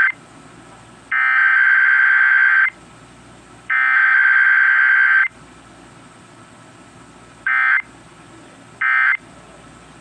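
Emergency Alert System SAME digital data bursts: two long buzzing, warbling bursts of about a second and a half each, a second apart, then after a pause two short bursts.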